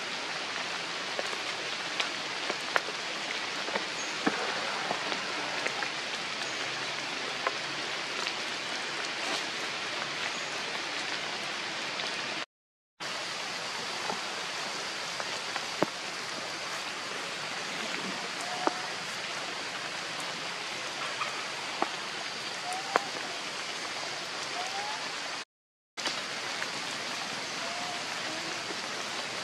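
Steady rain falling on forest foliage, an even hiss with scattered sharp drips and taps. A few short, high chirps come through in the second half, and the sound drops out to silence twice for under a second.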